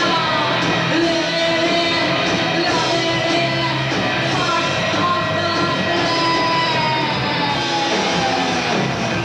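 Live rock band playing, with a woman singing into a microphone over it.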